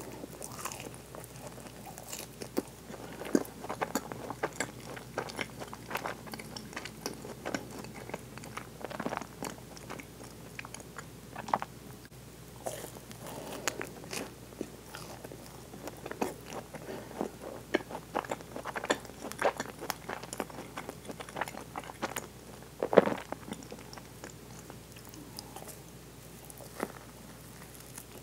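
Close-up biting and chewing of a chocolate-coated French cruller filled with soft chocolate whipped cream: small crunches and crackles of the coating mixed with wet chewing, in irregular bites, with one louder snap near the end.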